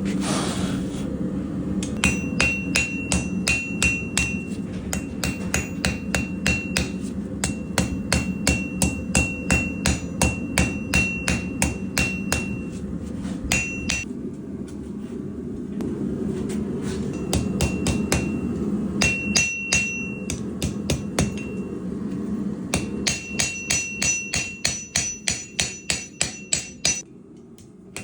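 Hammer blows on hot Damascus steel on an anvil as a knife blade is hand-forged: quick runs of about three strikes a second, each with a bright metallic ring, broken by short pauses. A steady low roar continues underneath.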